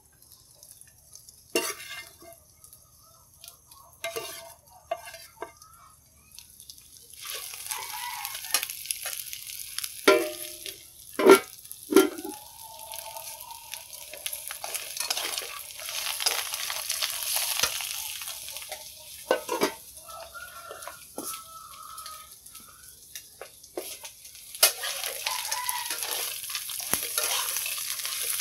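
Fried tofu and oyster mushrooms sizzling in oil in a wok while a metal spatula stirs and scrapes them. Only a few clicks at first; then the sizzling starts, with several loud knocks of the spatula against the wok. It eases for a while and picks up again near the end.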